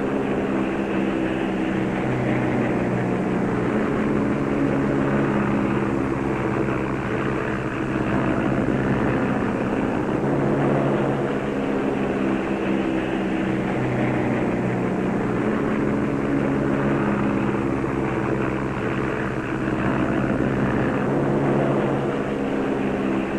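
Propeller aircraft engine droning steadily, with a slight waver in level.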